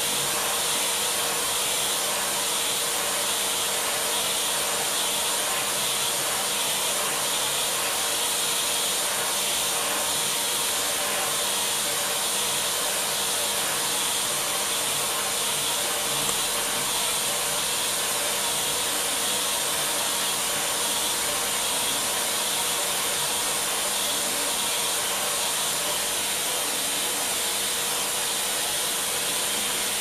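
Vacuum cleaner running steadily, its hose nozzle held over a duck's feathers: a constant rushing hiss over a steady hum.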